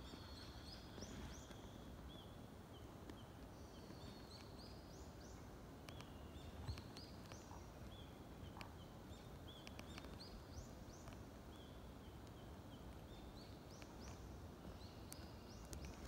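Faint birdsong: short high whistled notes and quick rising chirps repeating over and over, above a low steady background rumble, with a sharp click about seven seconds in.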